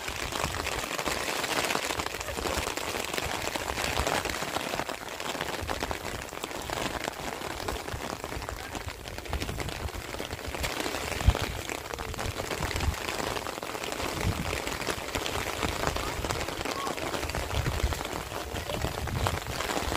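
Steady rain falling on open ground, a continuous even hiss, with irregular low rumbles and a single sharp knock about eleven seconds in.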